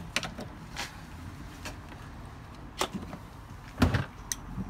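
Jump-starter clamps and cables being handled and clipped onto a flat car battery: a string of short clicks and knocks, with a louder thump a little before the end.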